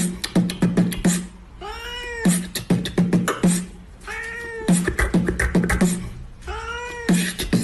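Cat meows cut into a rhythmic beat, in the style of a meme remix. Three drawn-out meows come about three seconds apart, each followed by a quick run of percussive hits.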